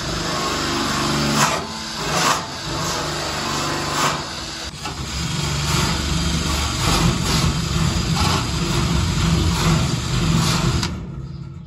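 A power tool working on car body metal: a steady motor hum under a loud hiss, with a few sharper spikes in the first few seconds. It stops abruptly near the end.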